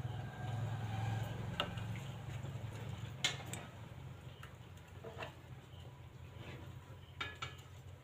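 A rose-ringed parakeet moving about on a wooden bench, making about six scattered sharp taps on the wood over a steady low hum.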